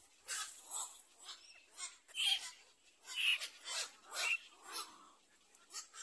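Black-crowned night herons at the nest giving a run of short, harsh calls, about two a second.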